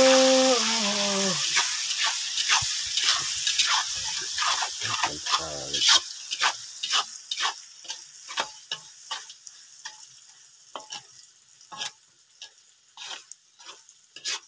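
Food sizzling in a black wok over a wood fire while a spatula stirs and scrapes against the pan in irregular strokes. The sizzling is loud at first and dies down over the first several seconds, leaving mostly the spatula's sharp scrapes and taps.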